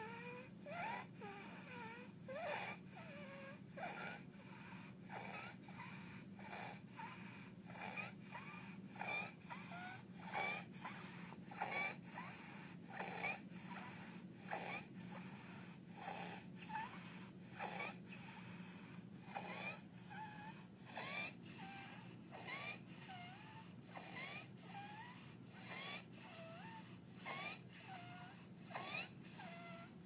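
Infant with croup breathing fast and noisily, about one breath a second, each breath carrying a harsh, high-pitched stridor that glides up or down in pitch: the sign of a narrowed upper airway.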